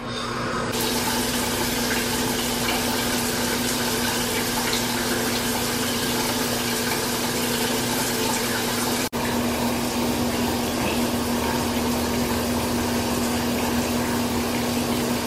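Shower running: water spraying from an overhead rain shower head onto tile, a steady hiss that builds up as the valve is turned on, with a brief break about nine seconds in.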